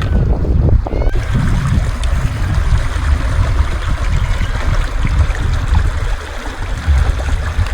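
Chicken frying in hot oil, a steady hiss that picks up about a second in, under a heavy gusting rumble of wind on the microphone.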